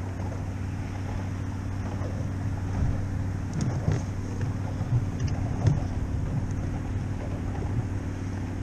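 A steady low motor hum with wind on the microphone, and a few short knocks between about three and six seconds in.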